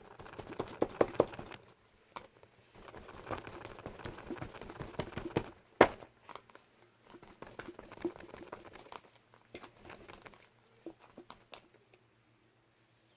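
Pink slime with lotion worked in being poked and kneaded by hand, giving off runs of small sticky clicks and crackles, with one sharper pop about six seconds in. The clicks thin out and stop shortly before the end.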